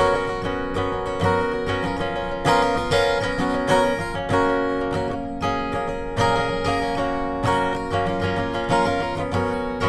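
Acoustic guitar with a capo, strummed in a steady rhythm of chords.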